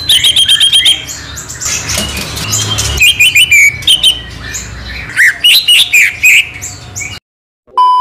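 Caged male green leafbird (cucak ijo) singing a varied, fast run of chirps, trills and whistles, with other small birds chirping alongside. The birdsong cuts off about seven seconds in, and a steady test-tone beep sounds near the end.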